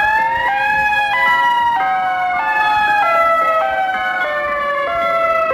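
EOWS 612 electronic outdoor warning siren sounding loudly. It plays a chord of several tones at once that slide slowly and jump to new pitches every half-second or so.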